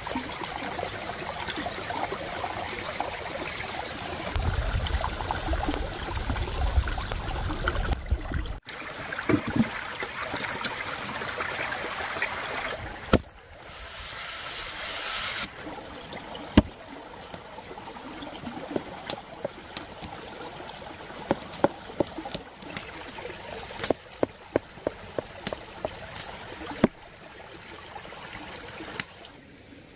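A shallow stream trickling over stones, with close handling sounds of cooking over it: food moved about in a steaming pot, then a run of short, sharp taps and knocks from work on a wooden board.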